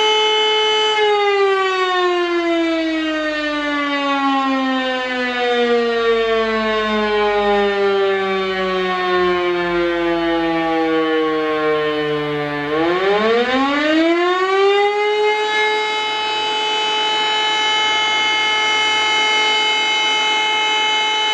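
E57 electro-mechanical siren on a tall mast sounding the 'Feueralarm' test signal: its steady tone cuts out about a second in and winds down, the pitch falling slowly for about twelve seconds, then the siren spins back up within about three seconds to its full steady tone. This is one of the breaks in the fire-alarm signal's interrupted continuous tone.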